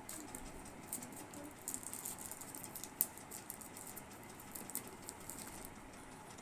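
Faint rustling and light clicks of hands handling and opening a white cardboard phone box, with one sharper click about halfway through.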